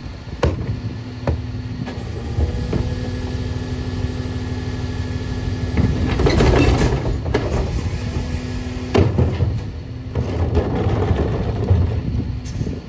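Hydraulic cart tipper on a McNeilus rear-loader garbage truck lifting and emptying a plastic recycling cart: a couple of clicks as the cart is hooked on, a steady hydraulic hum while it rises, a rush of recyclables spilling into the hopper about six seconds in, and a sharp knock as the cart comes back down about nine seconds in.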